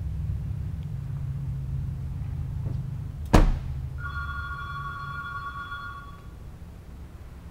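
A car door slams shut with a single loud thunk about a third of the way in. About half a second later a steady two-tone electronic ring lasts about two seconds. A low steady rumble runs underneath.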